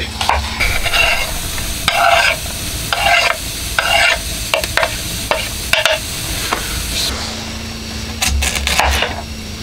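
Chopped onion sizzling as it fries in a pan, with a knife scraping and stirring it through the pan about once a second. Near the end the sizzle fades and a knife chops sharply on a wooden cutting board.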